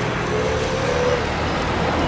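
Jet engine noise from a Boeing 787 Dreamliner flaring just before touchdown: a steady rush with a low hum and a faint whine that rises slightly and fades about a second in.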